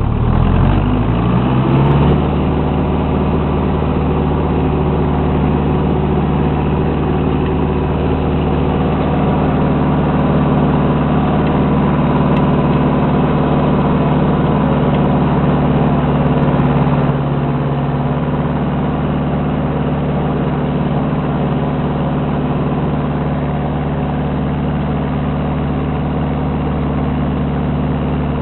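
Ursus C-360 tractor's four-cylinder diesel engine revs up over about two seconds, then runs steadily at high revs, easing off slightly about 17 seconds in.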